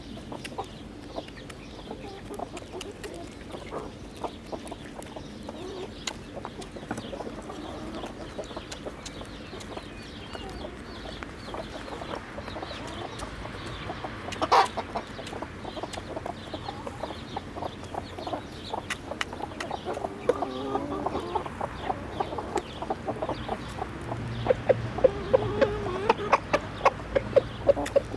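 Chickens clucking steadily while they feed. A single sharp knock comes about halfway through, and near the end a quick run of sharp taps, about three a second.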